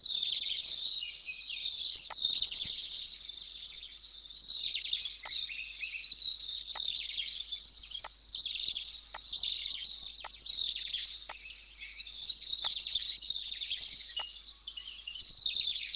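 Steady background chorus of many small birds chirping, with sharp computer-mouse clicks about once every second or so.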